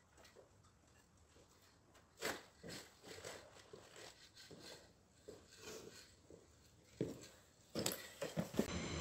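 Faint scattered knocks and scuffs, growing more frequent and louder in the last two seconds.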